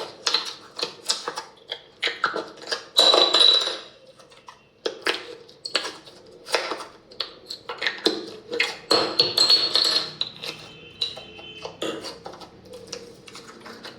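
Slime being squished and poked by hand, giving quick irregular sticky clicks and pops, with longer, louder squelching bursts about three seconds in and again around nine seconds.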